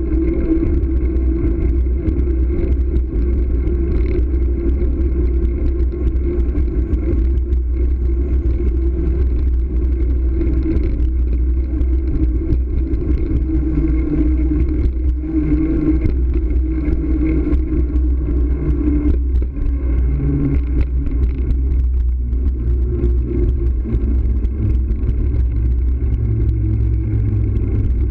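Steady rumble of wind buffeting and tyre-on-pavement noise picked up by a camera mounted on a moving bicycle.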